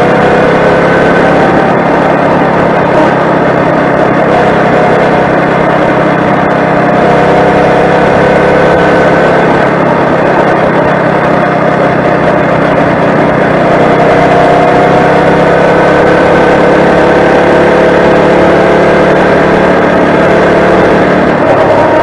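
Four-stroke motorized bicycle engine running under way, steady and loud, its pitch drifting slowly up and down as the speed changes.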